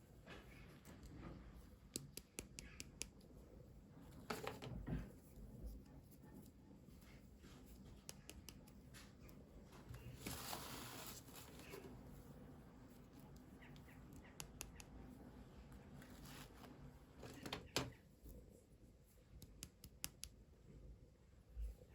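Faint handling of toy packaging: scattered small clicks and taps, a couple of soft knocks, and a short rustle of packaging being torn or opened about halfway through.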